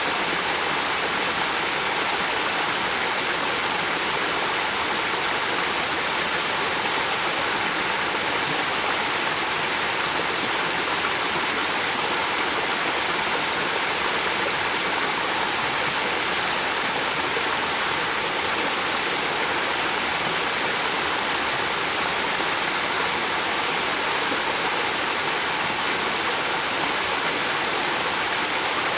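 River water flowing steadily: an even, unbroken rushing hiss with no splashes or changes.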